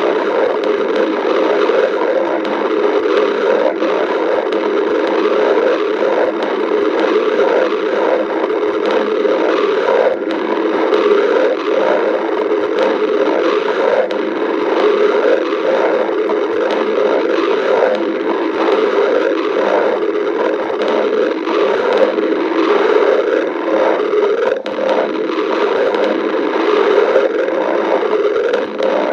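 Stomach growling: a steady, unbroken run of rumbling and gurgling.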